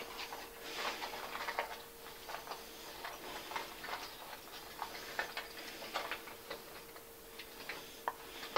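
Small hard objects being handled and sorted: irregular light clicks and rattles, over a faint steady hum.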